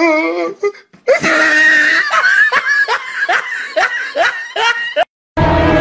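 Laughter: a voice laughing in quick repeated rising bursts, about three a second, for about four seconds, after a brief wavering voice at the start.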